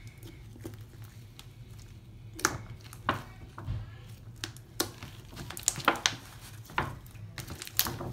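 Slime being kneaded and squished by hand as squares of toilet paper are worked into it, giving irregular sticky clicks and pops over a low steady hum.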